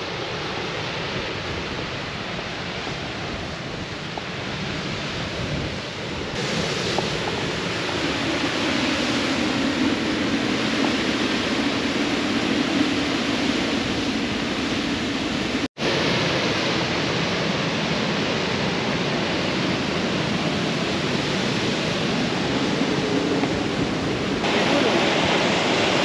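Steady rush of white water from Madeleine Falls and its river rapids, broken by a split-second gap a little past halfway.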